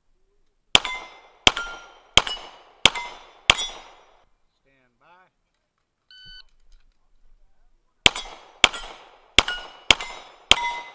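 Two strings of five pistol shots from a 9mm Glock 17, about 0.7 s apart, each answered by the ring of a struck steel plate. Between the strings, a shot timer's start beep sounds about six seconds in.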